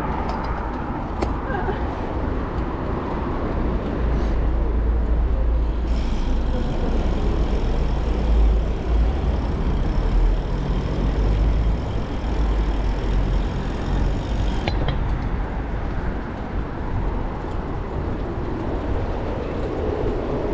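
Riding noise picked up by a bike-mounted action camera: wind rumbling on the microphone along with road traffic, heaviest in the middle stretch.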